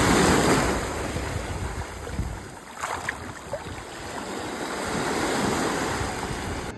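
Ocean surf washing up on a beach, a steady rush that swells at the start, ebbs, and builds again.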